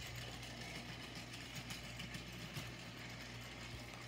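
Plarail Streamlined Thomas toy train's small battery motor running steadily as it drives along plastic track, a low even hum.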